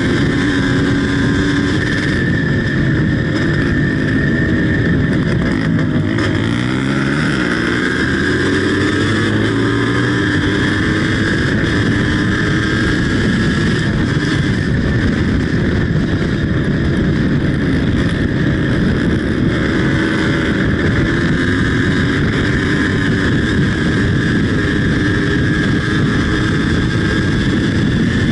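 Yamaha DT 180 two-stroke single-cylinder motorcycle engine running hard at high revs under acceleration. About six seconds in the engine note drops and climbs back up, then holds steady.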